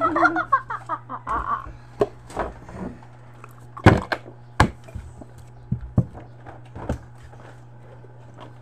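Scattered knocks and thumps of a drinking glass and a plastic water jug being handled and set down on a table, the loudest about four seconds in, over a steady low hum.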